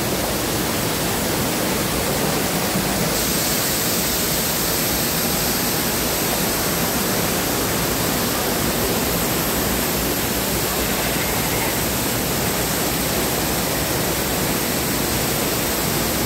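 Steady rush of water from the themed rockwork waterfalls, an even hiss that holds at one level and turns brighter about three seconds in.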